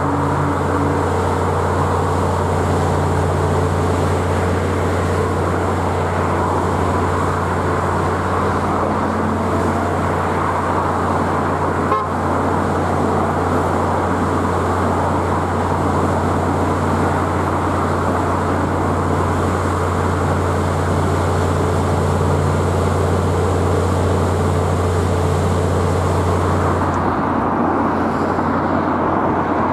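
Container freight train rolling past at steady speed: a continuous rumble and clatter of wagon wheels on the rails over a low, steady drone. The sound changes about 27 seconds in.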